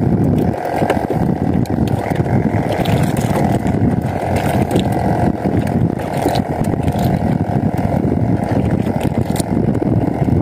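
Wind buffeting the microphone on open water: a steady, loud, low rushing rumble that wavers constantly, with faint scattered clicks.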